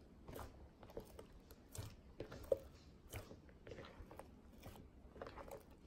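Slime being kneaded by hand in a plastic bowl of instant snow powder: faint, irregular crunching and squishing as the snow is worked in to turn it into cloud slime, with one sharper crackle about two and a half seconds in.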